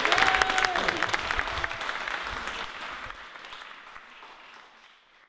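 Audience applause, a dense patter of many hands clapping, fading out steadily to silence near the end.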